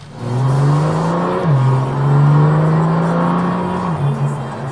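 BMW M2's turbocharged straight-six with a Fi Exhaust valvetronic cat-back and quad tips, heard from inside the cabin under hard acceleration. The engine note climbs, drops sharply on an upshift about a second and a half in, then climbs again and drops with another shift near the end.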